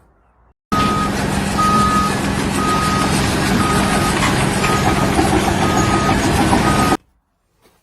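Heavy vehicle's reversing alarm beeping about once a second over its loud running engine; the sound starts and cuts off suddenly.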